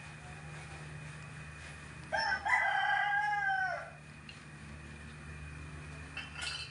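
A rooster crowing once, about two seconds in: a short opening note, then a long held note that drops away at its end, over a steady low hum. A brief clatter follows near the end.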